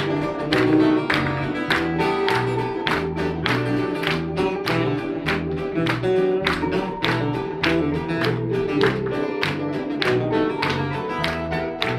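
Instrumental break of a folk-rock band song: acoustic guitar strumming in a steady rhythm over a pulsing bass line, with held melody notes.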